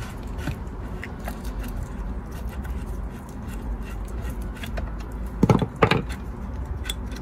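Small metallic clicks and scrapes of a screwdriver turning a Torx screw out of an ABS pump unit's motor housing, with two short, louder knocks close together about five and a half seconds in.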